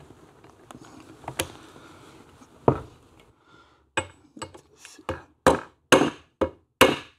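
Mallet striking a metal tube used as a drift over the kickstart spindle of a Tiger Cub engine. Two single knocks are followed by a run of about eight sharp, ringing blows, roughly two a second, getting louder toward the end.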